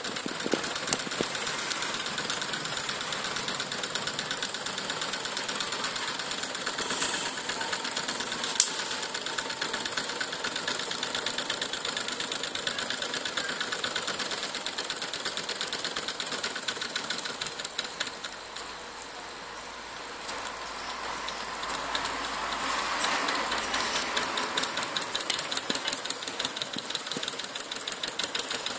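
Home-made drink-can Stirling engine running, its crank and flywheel clicking in a fast, even rhythm while it turns a small generator that lights LEDs. The running goes quieter for a couple of seconds about two-thirds of the way in, then picks up again.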